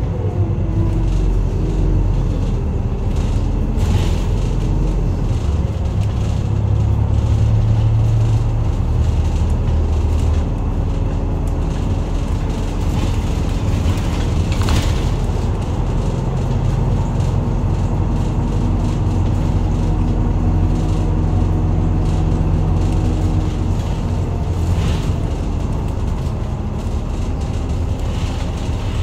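Interior running sound of a Hino Rainbow medium-size city bus: steady diesel engine and drivetrain rumble, the engine note stepping up and down several times. A few short knocks or rattles from the body come through.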